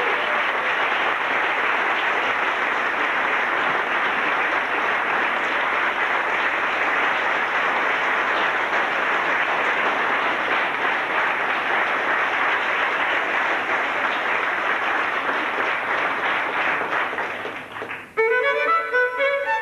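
Theatre audience applauding steadily for about eighteen seconds. Near the end the clapping cuts off and a violin starts playing.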